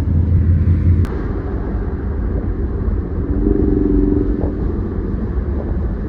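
Steady low rumble of a vehicle on the move, road and engine noise, with a click about a second in after which the rumble drops a little, and a brief low hum in the middle.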